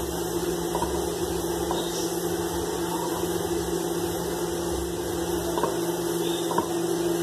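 Microwave oven running on high power with a steady hum, with a few faint knife taps on a cutting board as sausages are sliced.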